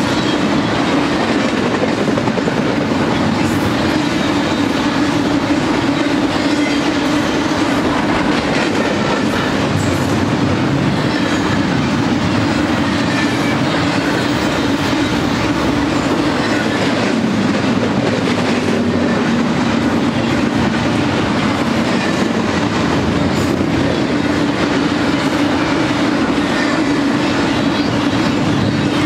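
Double-stack intermodal container train's well cars rolling past at a steady speed: a continuous loud rumble of steel wheels on rail with scattered clicks and faint high whines gliding up and down here and there.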